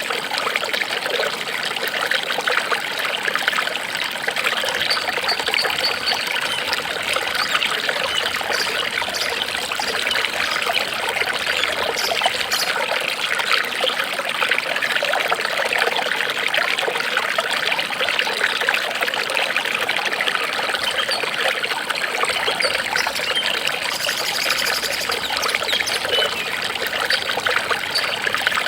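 Water trickling and babbling steadily, like a small stream running over stones, without pause.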